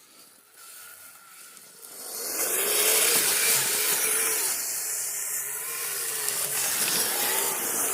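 Kyosho Blizzard RC tracked snow vehicle driving through snow: its plastic tracks churning and scraping for traction, with a faint motor whine that rises and falls with the throttle. It comes in about two seconds in after a quieter start.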